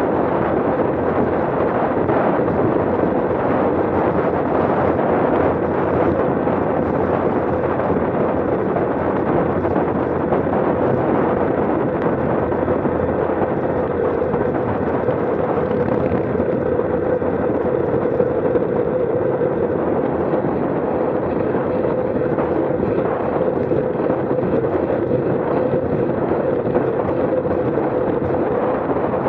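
Wind buffeting the microphone of a handlebar-mounted camera on a road bike descending at about 25 to 30 mph: a loud, steady rushing noise with an even hum running through it.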